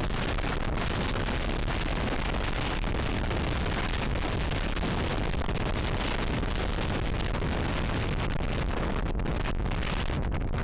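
Strong wind of over 22 knots buffeting the microphone aboard a sailboat under way: a loud, steady rushing noise.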